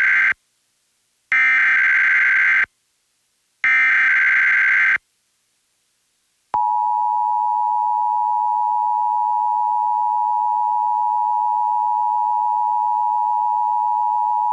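Emergency Alert System SAME header: three screeching bursts of digital data about a second long with about a second between them, the first already under way. About six and a half seconds in, the EAS two-tone attention signal (853 and 960 Hz together) starts and holds steady for about eight seconds.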